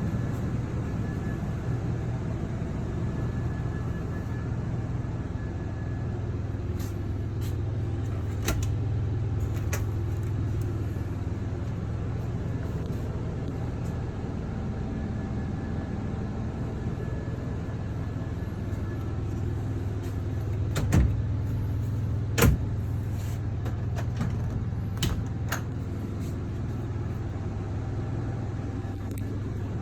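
A vehicle engine running steadily with a low hum, with a few sharp knocks or clicks, the loudest two close together about two-thirds of the way through.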